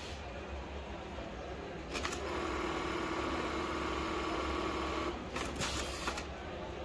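Electronic industrial sewing machine running through a stitch cycle. A clack about two seconds in starts a steady whine that lasts about three seconds, then several clacks follow as it stops.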